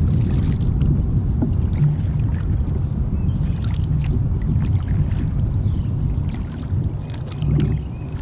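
Steady low rumble of wind and water on an action camera's microphone aboard a fishing kayak, with faint, short high chirps scattered through.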